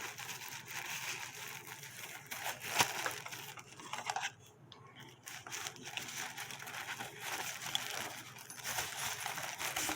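Packaging rustling and crinkling as a camcorder lens hood is handled and worked back into its box, with a sharp click about three seconds in.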